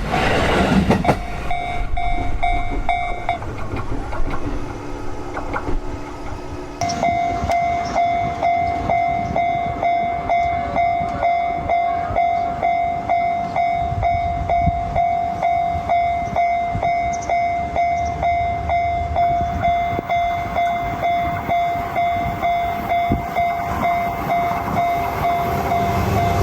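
Japanese level crossing's electronic warning bell ringing its steady "kan-kan" strokes, about two a second. Before it, a passing train fades out in the first second and another bell rings briefly. A train's rumble grows near the end.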